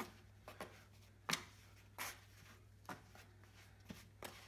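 Faint, irregular soft taps and rubbing of hands shaping a ball of floured bread dough on a wooden board, over a low steady hum.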